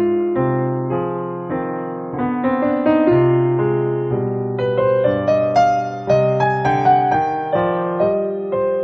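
Piano music: a melody of struck notes and chords, each ringing and fading.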